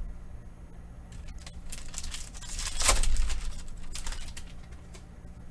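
Panini Prizm trading cards handled and shuffled in the hands: rustling and sliding with a few light clicks, loudest about three seconds in.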